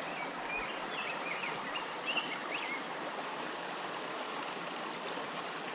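Small mountain stream rushing steadily, with a few short high chirps over it in the first two to three seconds.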